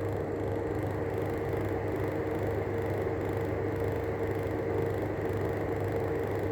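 Arlec 200 mm exhaust fan running with worn-out bearings: a steady hum with a constant tone over a noisy whirr.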